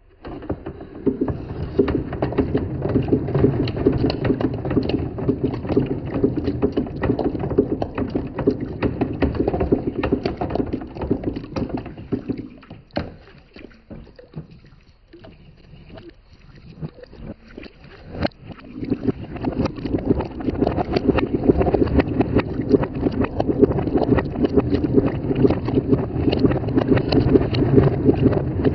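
Balls rolling along a wooden marble-run track: a continuous rolling rumble dense with small clicks and knocks. It starts suddenly, thins out to scattered clicks a little before the middle, and builds back to a full rumble for the last third.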